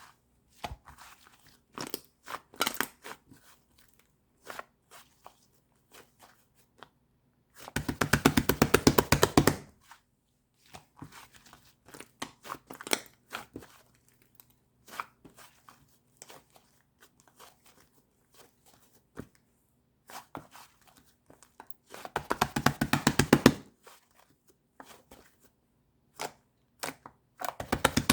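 White slime being squished and poked by hand: scattered sticky clicks and pops, with three longer bursts of rapid crackling squelches, about a third of the way in, again about four fifths in, and at the end.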